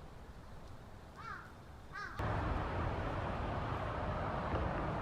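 Two short, harsh bird calls, about one and two seconds in. Then a steady hiss of outdoor noise starts suddenly and carries on.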